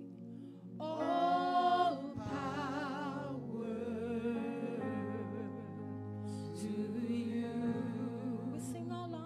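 Church worship team singing a gospel worship song into microphones, the voices wavering with vibrato over held accompanying chords.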